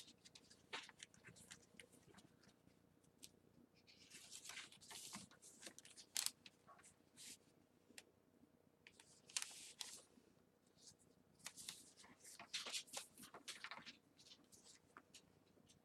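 Faint rustling and crinkling of paper in short, irregular bursts as the pages and tucked-in pieces of a handmade paper journal are handled.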